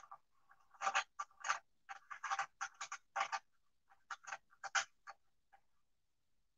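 Irregular run of short clicks and knocks from hands working on a power sprayer pump, about fifteen in four or five seconds, stopping about a second before the end.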